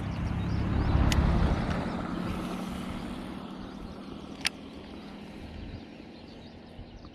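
A motor vehicle passing, its low rumble swelling to a peak about a second in and then slowly fading, over a steady low hum; two sharp clicks stand out, near the start and about halfway through.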